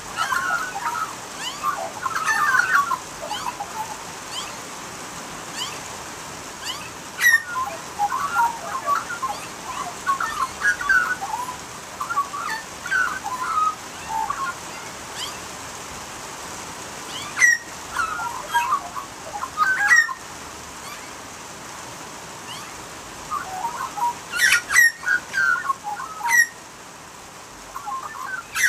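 Australian magpies carolling: spells of fluting, warbling notes that glide up and down, with sharp high notes among them. The spells come about four times, with pauses of a few seconds between.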